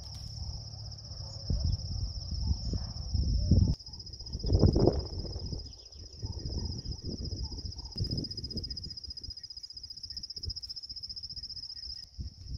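Insects, likely crickets, trilling steadily in a high, even buzz. Under the trill is low gusty buffeting that comes and goes, loudest about five seconds in.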